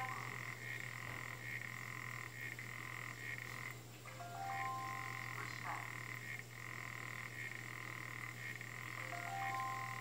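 African clawed frog calling underwater: a sustained high trill that runs in stretches broken by short gaps about every half second to second.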